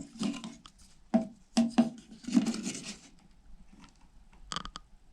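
A string of dull knocks and taps in quick succession, then a few sharp clicks near the end.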